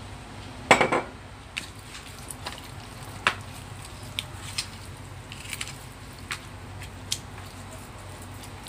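A hand squishing and turning raw pork pieces in marinade in a plastic bowl: scattered short wet squelches and light clicks, with a louder clatter of several quick knocks about a second in.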